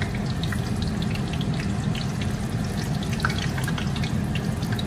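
Oil sizzling with scattered crackles and pops in a frying pan as sticky-rice rolls (chả nếp) shallow-fry, over a steady low hum.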